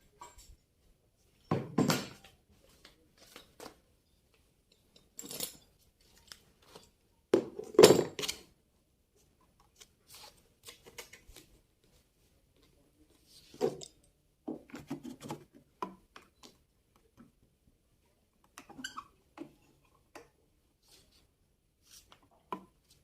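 Irregular knocks, taps and clatter of hard objects being handled and set down, loudest in two short clusters about two seconds in and about eight seconds in, with quiet gaps between.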